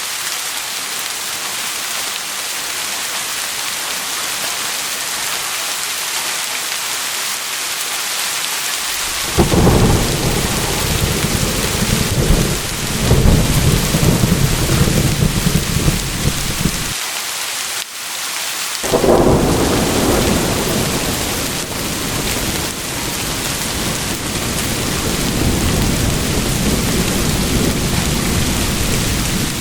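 Steady heavy rain with rolling thunder. About nine seconds in, a long low rumble of thunder starts and breaks off abruptly after about eight seconds. A second peal follows about two seconds later and rolls away slowly under the rain.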